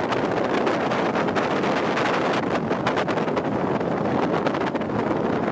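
Wind buffeting the microphone: a loud, steady rush broken by frequent crackles.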